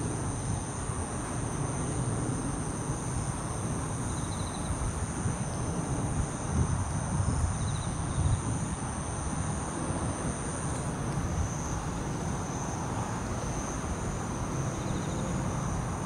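Autumn night chorus of singing crickets, bell crickets among them: a steady high-pitched ringing with three short pulsed trills standing out, over a low background rumble.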